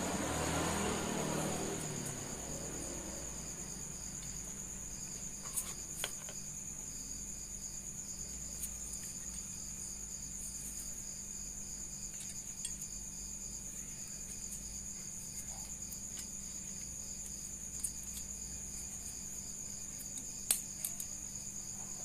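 Crickets chirping steadily: a continuous shrill high trill with a quick, even pulsing chirp beneath it. A few faint clicks from metal clutch plates being handled.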